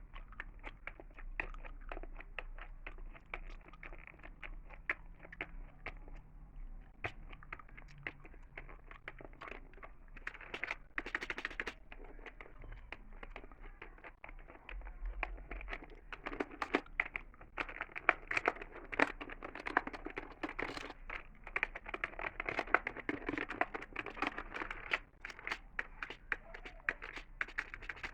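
Close-miked gum chewing mixed with the clicking of a computer keyboard: a dense stream of small clicks and crackles that grows busier and louder about halfway through.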